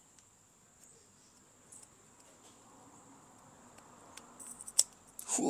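Mostly quiet hand work on a motorcycle disc-brake caliper, with a faint steady high-pitched whine throughout. From about four seconds in come a few small metal clicks, one sharper than the rest, as the greased piston is worked into the caliper body.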